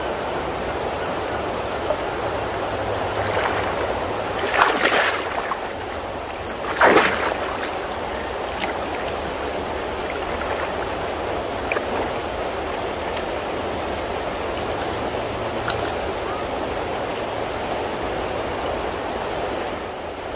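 Creek water running steadily over a shallow riffle, with two louder splashes in the water about five and seven seconds in.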